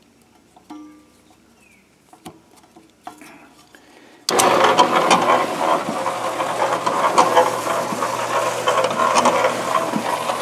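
A few small clicks as a power cord is plugged in, then about four seconds in an electric Kushlan cement mixer, converted into a compost sifter with its drum lined in wire mesh, switches on suddenly. It runs steadily: a motor hum under a busy clatter of small clicks from the turning drum.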